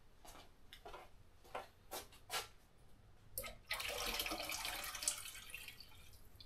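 A few short knocks, then water running and splashing into a vessel for about two seconds, the loudest sound here, while tea for kombucha is being made.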